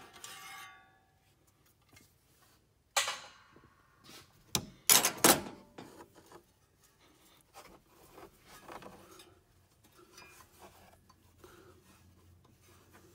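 Metal clanks and rubbing from a Jeep 4.0's fan clutch being spun off the water pump's threaded hub after it has been broken loose. There is a sharp ringing clank at the start and another hit about three seconds in. A cluster of loud knocks comes about five seconds in, with quieter scraping and light clicks between.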